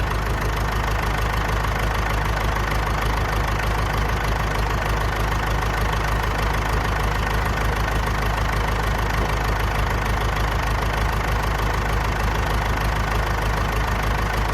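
Massey Ferguson Super 90 tractor engine idling steadily.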